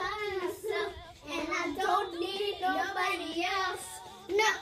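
Young girls singing, holding wavering notes without clear words.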